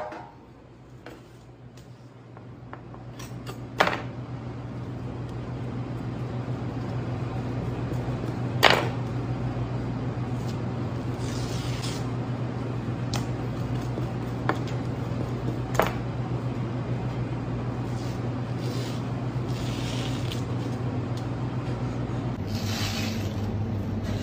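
Sole skin being torn off by hand in short rasping pulls, with a few sharp knocks on a plastic cutting board, over a steady low hum.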